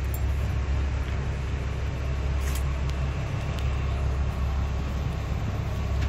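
Steady low rumble of the fishing boat's engine running, with a few light clicks from handling the rod and reel.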